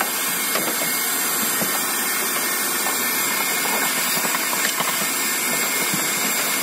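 Vacuum cleaner running steadily, sucking up attic dust and debris, with a few faint ticks.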